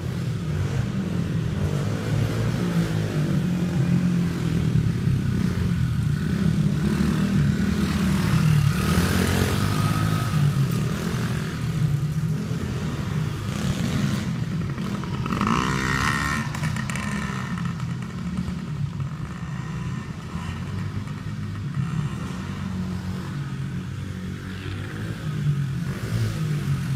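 Engine of a 70cc four-stroke Baja Dirt Runner dirt bike riding a motocross track, revving up and easing off over the jumps and berms, growing louder as the bike comes closer near the end.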